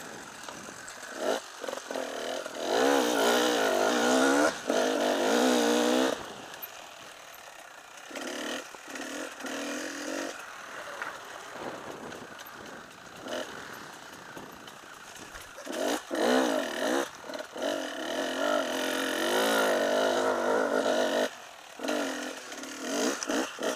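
Enduro motorcycle engine under way on a dirt trail, revving up and down with the throttle: two long hard pulls, a few seconds in and again past the middle, with quieter off-throttle running and short blips of throttle between.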